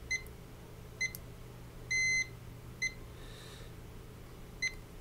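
Digital multimeter in continuity mode beeping as its probe is touched pin by pin around the ANX7447 chip, checking for a short to ground: four short high chirps and one longer steady beep about two seconds in.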